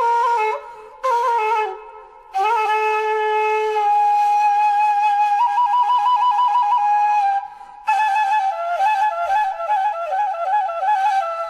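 Music: a single wind instrument playing a slow melody in short phrases. It holds one long note with a trill, then plays a quicker, ornamented passage after a brief break near the end.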